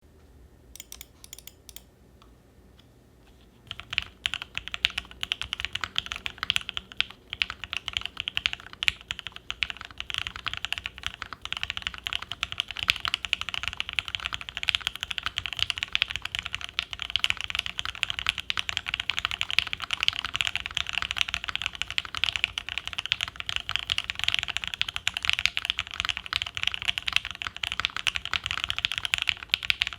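Mechanical keyboard with lubed and filmed Dogikon (JWK) linear switches on a top-mounted polycarbonate plate being typed on: a few scattered keystrokes, then steady fast typing from about four seconds in.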